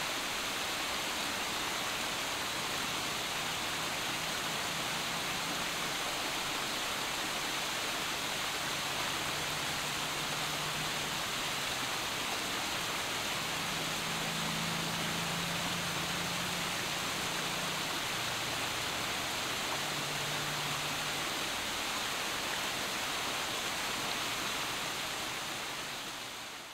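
Small waterfall cascading over boulders: a steady rushing splash of falling water, with a faint low hum coming and going. It fades out over the last couple of seconds.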